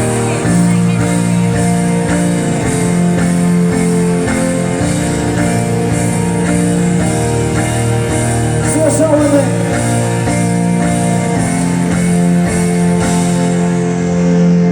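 Band music with guitar playing an instrumental intro of held chords, with a brief wavering voice about nine seconds in.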